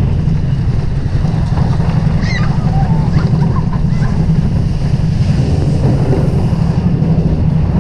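Vekoma mine train roller coaster running along its track at speed, heard from a rider's seat: a loud, steady rumble of the train with wind rushing over the microphone. A few faint, brief high squeals come about two seconds in.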